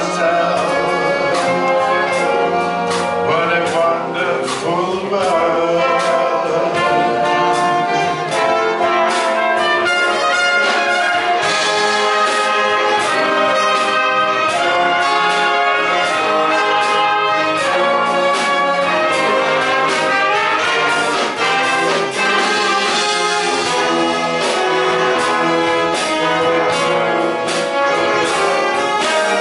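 A wind band playing live, brass to the fore: tubas, trombones and trumpets over saxophones and drum kit, in a steady, sustained passage.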